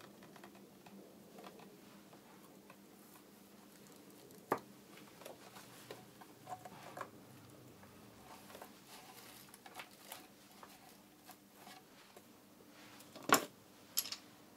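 Hands fitting a mahogany guitar neck into the neck pocket of a mahogany SG Junior body: faint scattered taps and rubs of wood on wood, a sharp knock about four and a half seconds in, and two louder knocks near the end.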